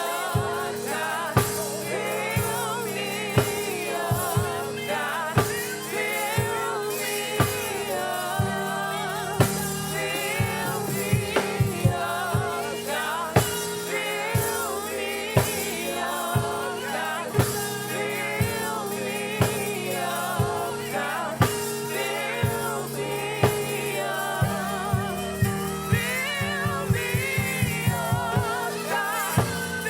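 Live gospel worship music: a choir singing with vibrato over a band, with a drum kit keeping a steady beat about once a second, a held keyboard note and a bass line. The drums play busier fills twice, about a third of the way in and near the end.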